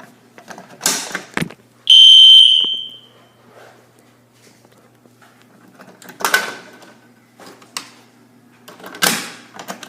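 A fire alarm system's sounder in test mode gives one loud, high-pitched beep about a second long, starting about two seconds in and trailing off, as a manual pull station is tripped. Short knocks and rustling from handling the device come just before it and twice later on.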